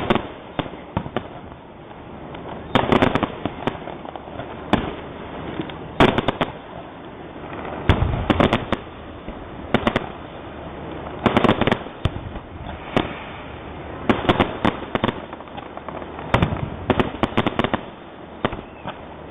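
Aerial fireworks in a grand finale: clusters of shell bursts and booms every second or two, with crackling between them.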